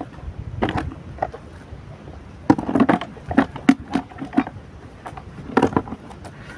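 Hands rubbing damp groundbait through a riddle into a plastic bucket, to break up lumps and fluff the mix. It gives short scraping, rustling sounds in three bunches, the longest about halfway through.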